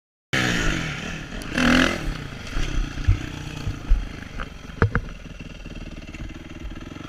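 Honda motocross bike engine heard from an on-bike camera: it cuts in suddenly at high revs, falls in pitch, then runs lower and steadier, with several sharp knocks as the bike goes over rough ground.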